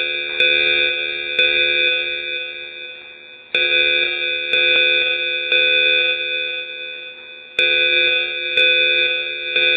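Evacuation alarm chime: bell-like ringing tones struck in groups of three, about a second apart, with each group repeating about every four seconds and ringing on and fading between groups.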